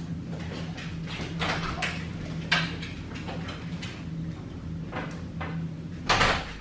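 Footsteps and short knocks on a hard floor as a person and a dog walk out through a door, over a steady low hum. A louder, longer rush of noise comes near the end.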